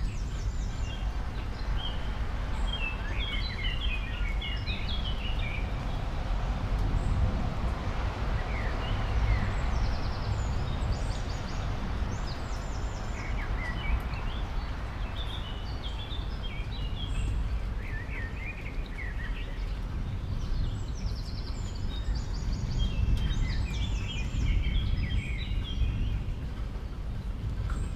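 Steady low background rumble and hiss, with high chirps and short rapid trills coming in scattered clusters throughout.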